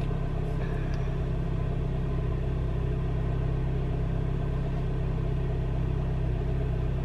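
Steady low rumble of a car heard from inside the cabin while driving: road and engine noise.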